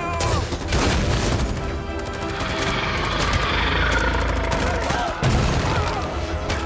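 Action-film soundtrack: rapid machine-gun fire over dramatic score music, with a heavy low rumble underneath.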